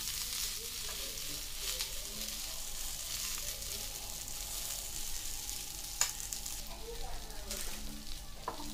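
Onion slices sizzling on the hot ribbed plate of an electric contact grill, a steady high hiss. A metal knife scrapes and taps on the plate as the slices are turned, with one sharp click about six seconds in.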